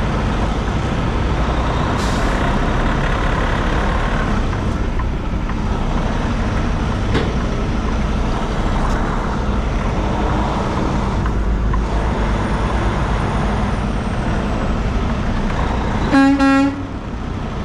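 Steady low rumble of a semi-truck's engine and road noise. Near the end, a single horn blast lasting about half a second.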